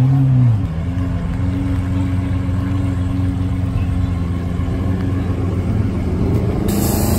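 Car engine running steadily with a low drone, swelling briefly in pitch right at the start. A sudden burst of hiss comes near the end.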